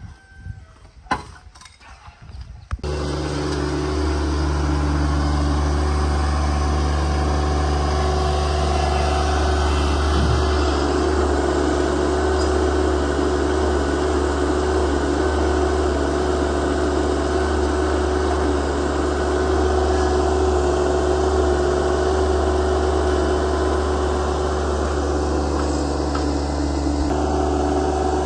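Small Yanmar compact tractor's diesel engine running steadily while its front-end loader works. It cuts in abruptly about three seconds in, after a few faint knocks.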